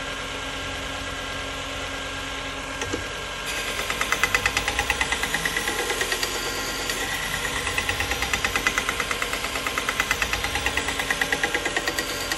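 AMK-75 belt sharpener, driven by a sewing-machine-type motor, running a compound-dressed leather stropping belt with a steady hum. From about three and a half seconds in, a rhythmic ticking beat of about four a second rises as a knife edge is stropped on the leather belt, which is worn and due for replacement.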